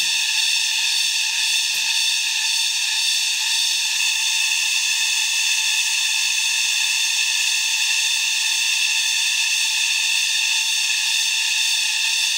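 Steady high-pitched drone of a cicada chorus in the forest canopy, a continuous shrill buzz that holds unchanged throughout.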